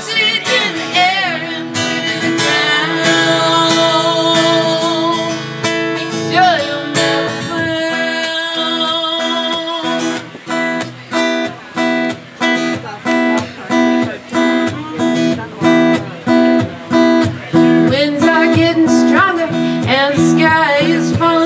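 Live acoustic guitar music in an instrumental break of a song: sustained strummed chords with wavering held notes at first, then about ten seconds in, short choppy chords that stop and start about twice a second.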